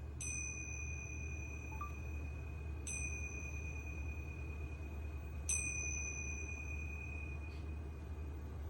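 A high bell-like metal note struck three times at even spacing, about two and a half seconds apart, each ringing on until the next, over a quiet low hum.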